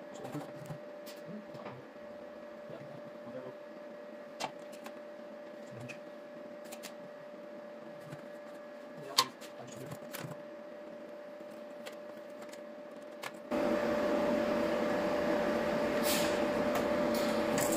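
A steady shop hum with scattered light taps and clicks, and one sharper knock about nine seconds in. About thirteen seconds in, a much louder steady rushing noise starts abruptly and keeps on.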